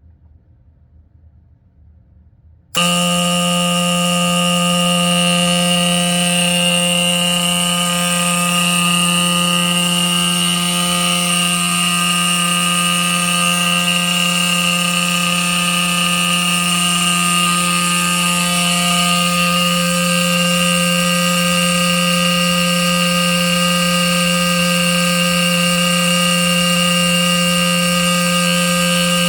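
Antique Edwards Adaptahorn fire alarm horn sounding continuously: a loud, steady horn tone at one unchanging pitch that starts abruptly about three seconds in.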